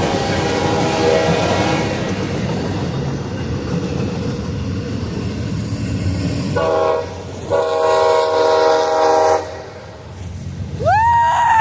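Diesel freight locomotive's air horn sounding as the train passes. A chord fades over the first two seconds, then comes a short blast and a longer blast of about two seconds, over the steady rumble of rolling freight cars.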